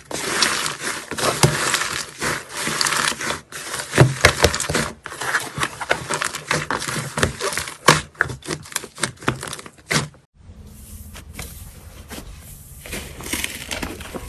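Slime being squeezed and pressed by hand, crackling with many sharp pops. About ten seconds in it cuts off abruptly to a quieter, sparser crackling over a low hum.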